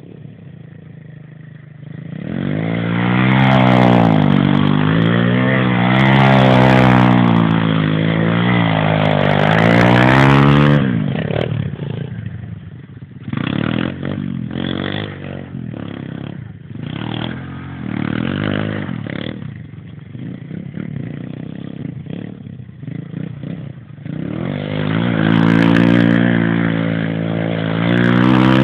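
Pit bike engine revving hard and held at high revs while the bike spins donuts, its pitch swaying up and down. In the middle stretch the throttle comes in short choppy bursts, then it is held high again near the end.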